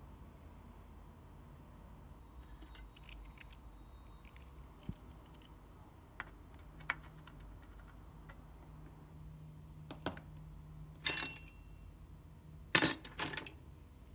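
Small metal hot-air rework nozzles clinking and clicking as they are sorted and handled, in scattered light taps, with the loudest few clinks near the end.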